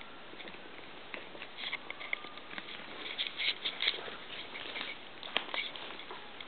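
Small pets nibbling and crunching corn: irregular crisp little clicks of chewing, growing busier about halfway through, with one sharper click near the end.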